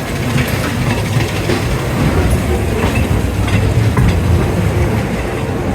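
Ghost train ride car running along its track: a steady low rumble with occasional sharp clacks.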